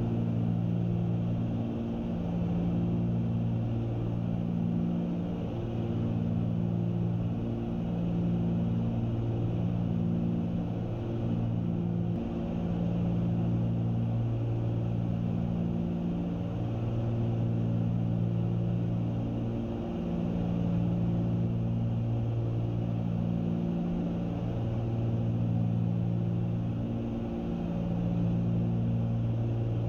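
Cessna 310Q cabin in cruise: the steady drone of its two piston engines and propellers, with a slow beat that swells and fades every two or three seconds, typical of the two propellers turning at slightly different speeds.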